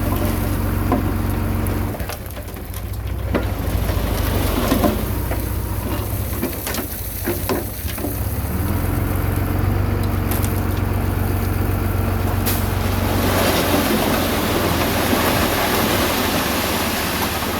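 Komatsu D21A bulldozer's diesel engine running under load, its note dropping about two seconds in and building again later. Clanks come through the middle, and a rougher grinding noise joins from about two-thirds of the way through.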